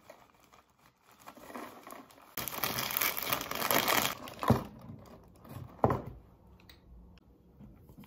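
A Lay's crisp packet crinkling as it is handled and crumpled, loudest for a couple of seconds midway. Two sharp knocks follow, about a second and a half apart.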